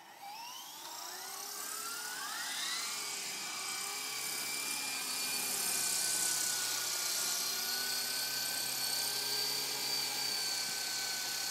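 Walkera Lama 3 coaxial electric RC helicopter spinning up: the whine of its motors and rotors rises in pitch over the first few seconds, then holds steady and grows louder as it lifts off and flies.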